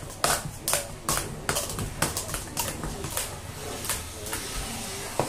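Plastic sport-stacking cups clacking as they are rapidly stacked up and down on a stacking mat: a quick, irregular run of sharp clicks.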